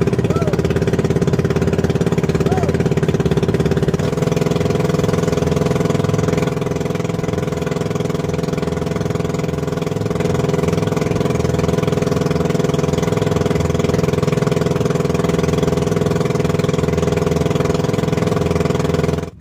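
Motor of a small outrigger fishing boat (bangka) running steadily at a constant speed. Its pitch steps up slightly about four seconds in, and it cuts off abruptly just before the end.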